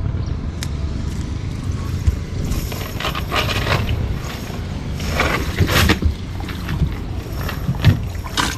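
Small boat's engine running steadily with a low rumble, overlaid by a few short, louder noisy bursts of scraping or splashing about three and six seconds in.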